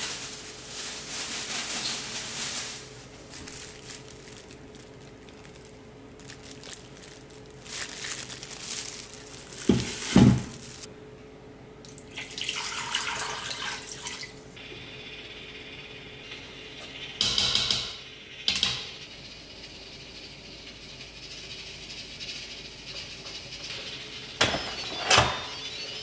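Water poured from a glass measuring cup into an Instant Pot's steel inner pot. A few sharp knocks and clunks of kitchenware come between the pours: the loudest about ten seconds in, others around seventeen seconds and near the end.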